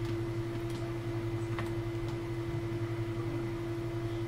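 Steady electrical hum with a constant higher tone, the background noise of a home recording setup, with a few faint clicks.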